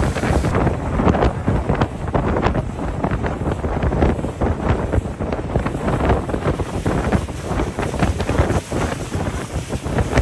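Wind buffeting the microphone of a small open motorboat under way, with a loud, gusting rush of air and water along the hull.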